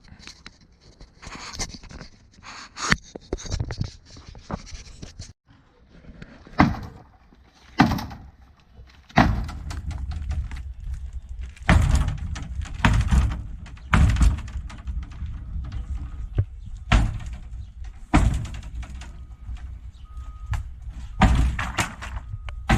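Irregular heavy knocks and thuds of a wooden building being demolished, blow after blow on boards and framing, one every second or two. There is a brief silent gap about five seconds in.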